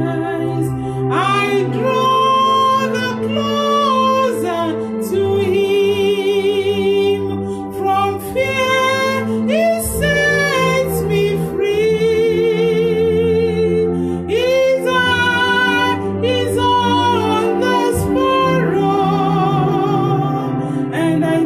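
A woman sings a slow song into a microphone, holding long notes with a wide vibrato. An electronic keyboard accompanies her with sustained chords.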